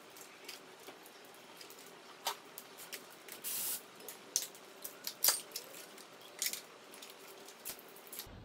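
Scattered light clicks, taps and rustles of plastic wiring connectors, coil packs and plug leads being unclipped and pulled off an engine, with a short hissy scrape about halfway through. A faint steady workshop hum runs underneath.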